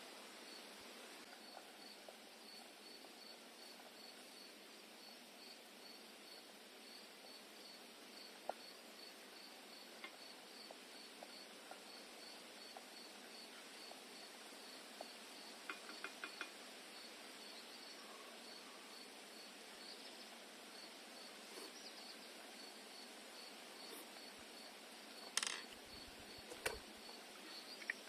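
Faint, steady cricket chirping, about three high chirps a second, over a low hiss. In the second half a few short clicks and knocks sound, the loudest about 25 seconds in.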